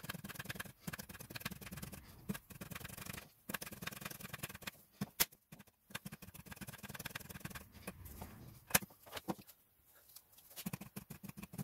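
Hand primer on a 1.6 HDi diesel fuel filter housing being pumped over and over to bleed air from the fuel system after a filter change, giving faint repeated clicks, with a couple of sharper clicks about five and nine seconds in.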